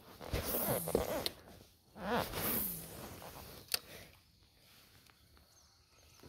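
Rustling handling noise from an angler working a fishing rod and reel in a kayak, in two bursts, with a single sharp click a little before four seconds in.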